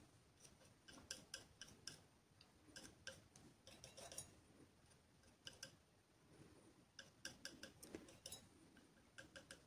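Faint, irregular light taps and clicks of a painting tool's tip dabbing thick acrylic paint onto a small canvas, against near silence.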